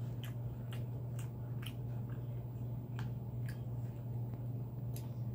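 Close-miked eating sounds: a series of short, soft clicks and squishes from chewing and from a utensil dipping a boneless chicken wing into a plastic cup of ranch, over a steady low hum.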